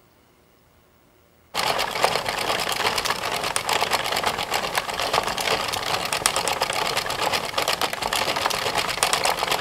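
Hand-cranked plastic circular knitting machine running, a fast, dense clatter of its needles clicking round as the crank is turned. It starts suddenly about a second and a half in.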